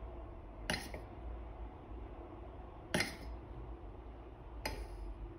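Three light clinks on a small metal bowl of melted chocolate as a cake pop is dipped and coated in it: one about a second in, one about three seconds in, and one near the end.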